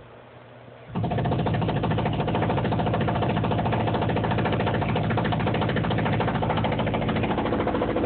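A jackhammer starts about a second in and then runs steadily, a fast unbroken stream of hammer blows.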